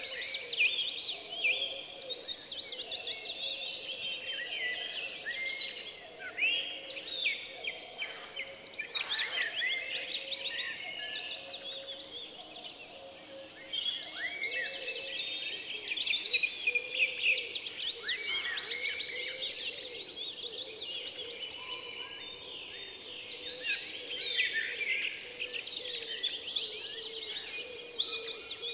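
Many small birds chirping over one another in a busy, continuous chorus, thinning briefly about halfway through and busiest near the end, with a faint steady hum beneath.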